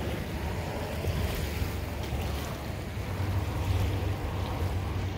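Wind noise on the microphone over small waves lapping at a pebbly shore, a steady low rustle and wash with no distinct events.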